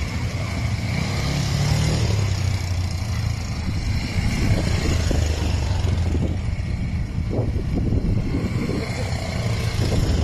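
Several ATV (quad bike) engines running as the quads ride past on a dirt track, with a short rising rev about a second and a half in.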